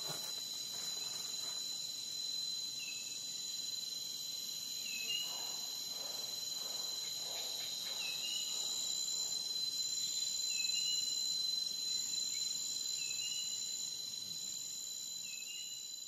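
Insect chorus with a steady high-pitched drone, like crickets, and a short chirp repeating about every two and a half seconds.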